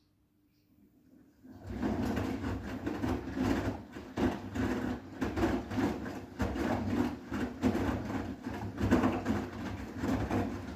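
Bosch front-loading washing machine's drum turning during the wash, tumbling and sloshing wet towels, with a motor hum underneath; it starts about a second and a half in after a pause.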